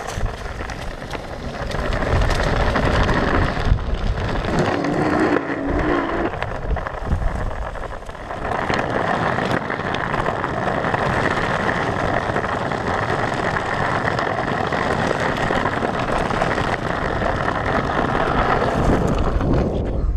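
Skateboard wheels rolling over rough ground, a steady rumble with rattles and clicks, with wind on the microphone.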